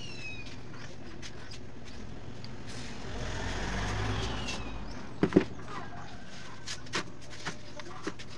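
Small metal clicks and ticks of needle-nose pliers crimping a wire terminal, with two sharp, louder clicks a little after five seconds in. A low rumble swells and fades in the background through the middle.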